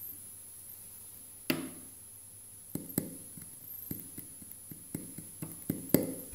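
About a dozen sharp knocks and taps at irregular intervals. A strong one comes about a second and a half in, and the loudest near the end.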